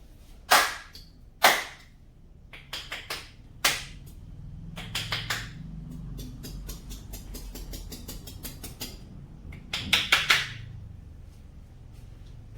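Hands-on massage percussion: sharp smacks, two about a second apart and a third after a pause, then lighter clicks and a quick cluster of loud smacks near the end.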